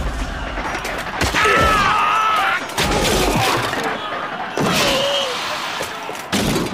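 Animated sword-fight sound effects: four sudden blows, the first about a second in and the last near the end, most followed by a soldier's short cry of pain.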